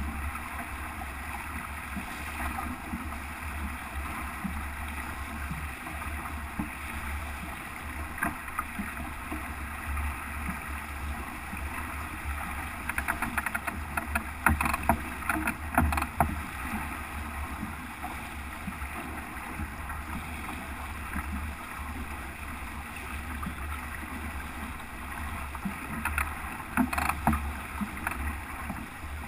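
A small okoumé-plywood sailboat sailing close-hauled, with a steady rush of water along the hull and a low wind rumble on the microphone. A run of slaps and knocks comes between about 13 and 16 seconds in, and again near the end.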